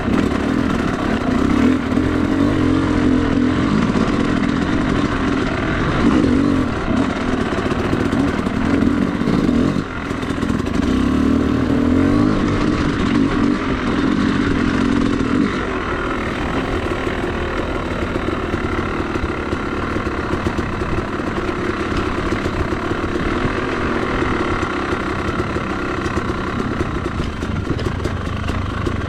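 Two-stroke dirt bike engine running under throttle, with a brief drop about ten seconds in, then running lower and steadier from about fifteen seconds in.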